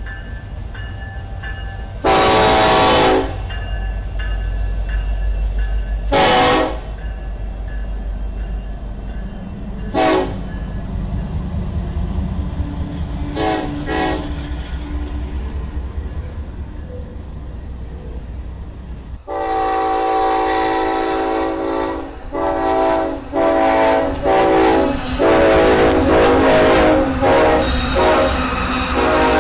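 Freight train rumbling past while a Norfolk Southern diesel locomotive's horn sounds. There is a long blast about 2 seconds in, shorter blasts near 6 and 10 seconds, and two quick toots a few seconds later. About 19 seconds in, a locomotive horn starts blowing again, loud and repeated in a long series of blasts with brief gaps.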